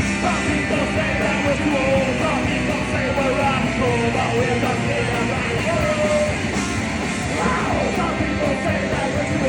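Live punk rock band playing a song at full volume, with shouted singing over the band.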